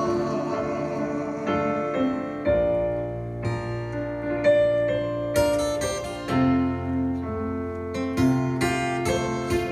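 Piano playing slow instrumental chords, a new chord struck every second or two over a sustained bass, with no singing.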